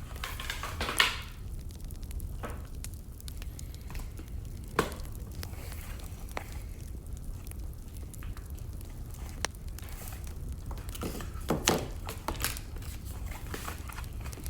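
Wood fire burning with a steady low rumble and irregular crackles and pops, a few louder snaps among them.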